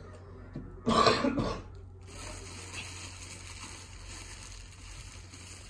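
A man clears his throat once, about a second in. Afterwards only a faint steady hiss with a low hum.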